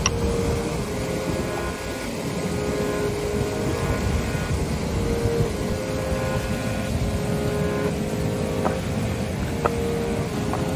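River water rushing steadily over a low weir, with a few faint knocks.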